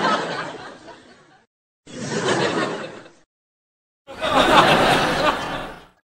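Canned sitcom laugh-track clips of a group of people laughing, played one after another with silence between them: the tail of one fades out in the first second and a half, a short burst of group laughter follows at about two seconds, and a louder, longer one runs from about four seconds to just before the end.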